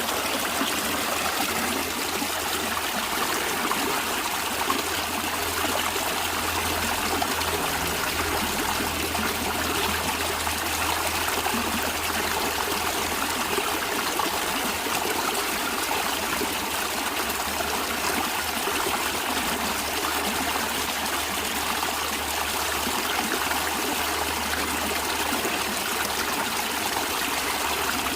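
Natural stream flowing steadily, a continuous trickling wash of water with a low rumble underneath.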